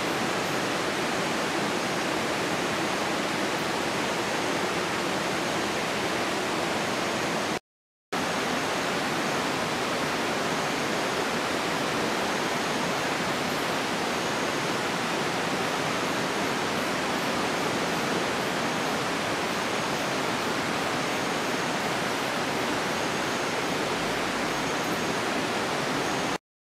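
A steady rushing noise like flowing water, with faint short high-pitched chirps repeating through it. It cuts out for a moment about eight seconds in.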